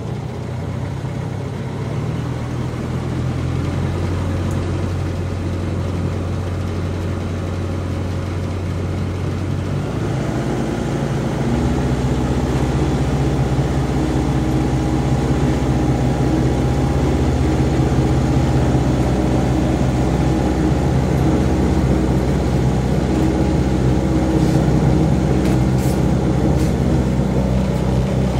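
A 27 ft cabin cruiser's 50 HP diesel engine running in reverse, heard from inside the cabin as a steady low drone. About ten seconds in, its note changes and it gets a little louder.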